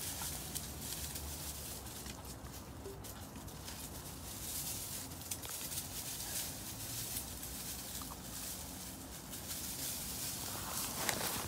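German shorthaired pointer puppies and an adult dog padding about on straw bedding: soft rustling of straw with a light patter of small steps, and a louder rustle near the end.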